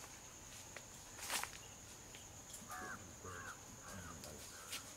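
A crow caws four times in quick succession, starting just under three seconds in, over a steady high insect buzz. A single sharp click comes about a second and a half in and is the loudest sound.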